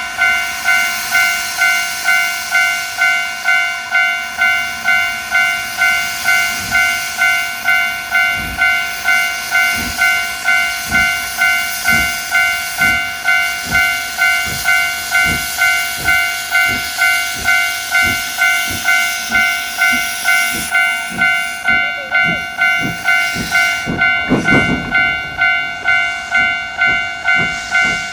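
Railway level-crossing alarm ringing with an evenly repeating ding, about one and a half a second, over a steam locomotive's hiss and a low rhythmic clatter of a passing train. The hiss cuts off about 21 seconds in, and a short low sound comes near 24 seconds.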